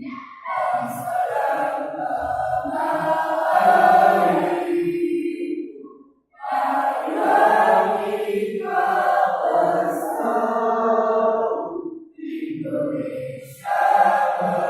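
A choir singing in long sustained phrases, with brief breaks about six seconds and twelve seconds in.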